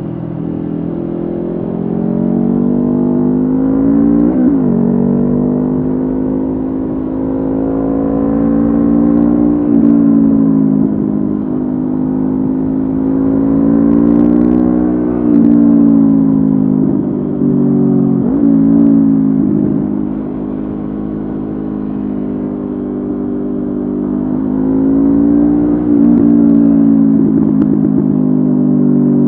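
Honda CB500F parallel-twin engine through a Mivv GP Pro aftermarket exhaust, riding along. Its note rises and falls in pitch several times as the throttle is opened and eased off, with a couple of quick dips and recoveries. A low rumble of wind and road runs underneath.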